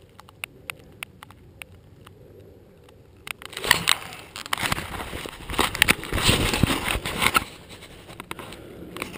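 Handling noise from an action camera being picked up: a few faint scattered clicks, then from about three and a half seconds in loud rubbing, scraping and knocks on the camera housing as it is lifted and swung around, easing off near the end.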